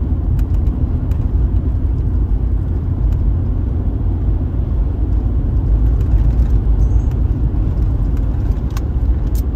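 A car driving, heard as a steady low road-and-engine rumble, with a few faint clicks.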